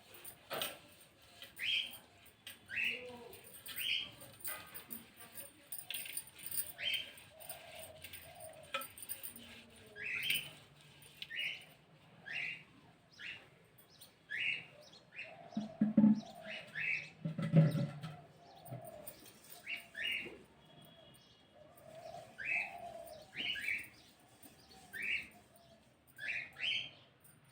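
A bird repeating a short, sharp chirp about once a second. About halfway through there are two low thumps close together.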